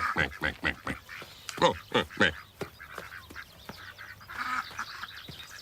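Ducks quacking in a quick run of short calls, with a few louder quacks about two seconds in, then dying away.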